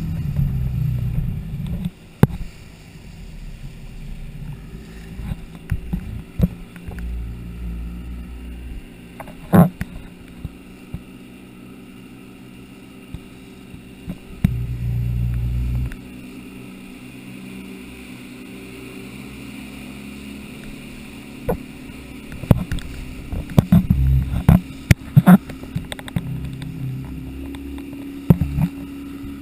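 Small motorboat running at speed over choppy water, its engine steady under the rush of water and spray. Wind rumbles on the microphone at times, and sharp slaps come as the hull hits the waves, several in quick succession in the later part.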